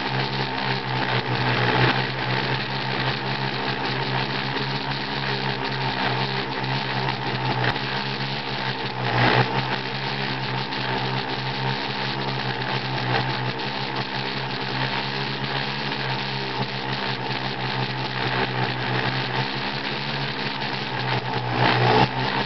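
Drone's electric motors and propellers running steadily in flight, a constant motor whine and propeller buzz, briefly surging louder about two seconds in, around nine seconds in, and near the end.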